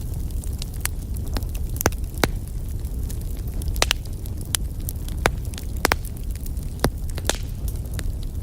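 Fireplace wood fire crackling: a steady low rumble with sharp pops and snaps at irregular intervals, several every second.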